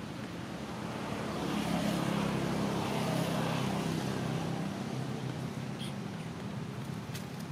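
A motor vehicle passing by: its engine hum swells from about a second in, is loudest for a couple of seconds, then fades away.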